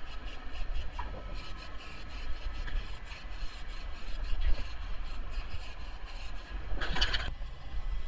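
Aerosol can of weld-through primer spraying in hissing bursts, the loudest near the end, over a low rumble.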